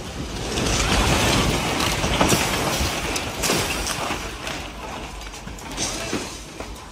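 Loud rumbling and rattling of ground shaking in a strong earthquake, swelling about a second in and easing after about four seconds, with scattered clatters and knocks.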